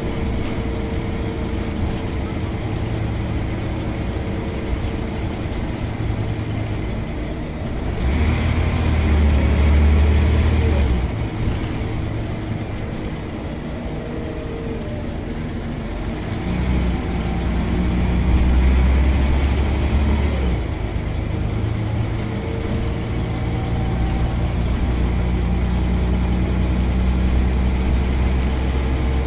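Scania L94UB Omnicity bus's diesel engine heard from inside the passenger saloon, working hard as the bus accelerates. It grows louder twice, about a third of the way in and again about two-thirds through, then holds a louder steady drone near the end.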